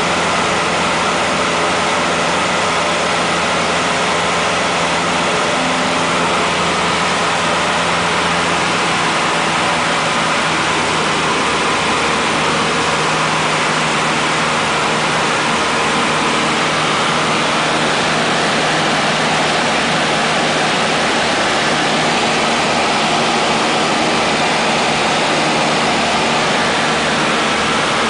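Cessna 152's four-cylinder Lycoming O-235 engine and propeller droning steadily in flight, heard inside the cabin along with the rush of the airflow over the airframe.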